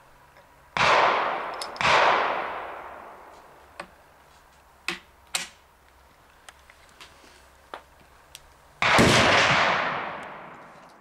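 Three loud rifle gunshots, two about a second apart early on and one near the end, each echoing away over about two seconds. Between them come small metallic clicks from handling a Springfield Trapdoor rifle's breech and hammer.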